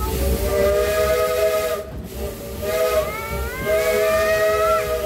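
Narrow-gauge steam locomotive's whistle blowing a chord of several notes: a long blast, a short one, then another long blast, over the low rumble of the moving train.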